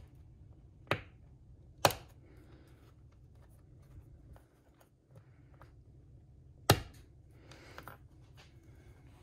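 Sharp clicks of small plastic and metal parts being handled on a wooden workbench as carburetor limiter caps are trimmed with a knife blade: three clicks, the first two about a second apart and the third several seconds later, followed by a brief light rustle.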